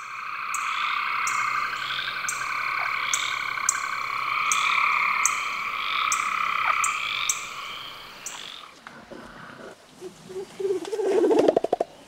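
A chorus of frogs calling, a dense steady trill with sharp high clicks about once a second, that stops about nine seconds in. Near the end a single lower, rapidly pulsed croak comes in, the loudest sound.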